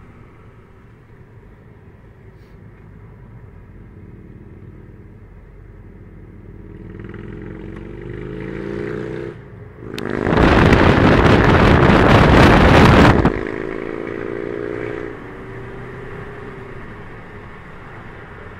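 Vehicle engine heard from inside a car cabin, rising in pitch as it accelerates and briefly dropping away at a gear change. For about three seconds in the middle a loud rushing noise covers everything.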